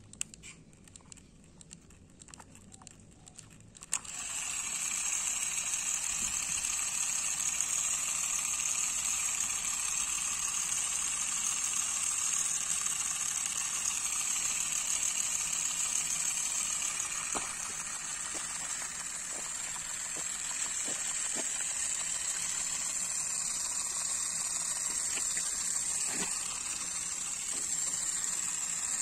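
A steady hissing, rushing noise starts abruptly about four seconds in, after a few faint clicks, and runs on evenly.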